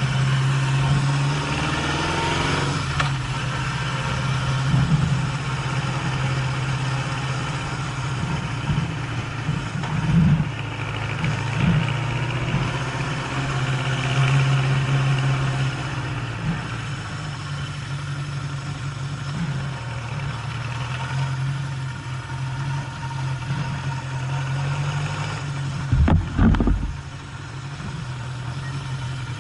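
Honda CB750 motorcycle engine running on the move, its note rising and easing with the throttle. It climbs in pitch in the first few seconds. Near the end there is a short, loud low rumble.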